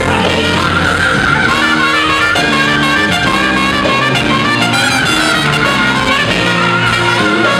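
Live band playing, a trumpet sounding over keyboard and bass.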